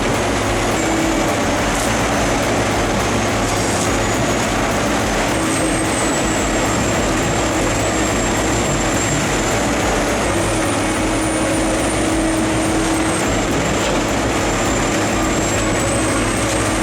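Heavy diesel machinery running steadily under load: a loud, continuous engine drone with a low hum and a faint high whine that shifts pitch slightly now and then.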